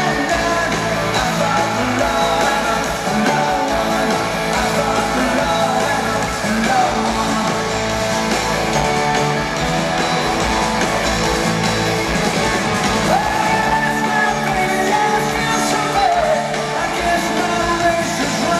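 Live rock band playing in an arena: electric guitars, drums and keyboards under a lead singer, carrying through the hall.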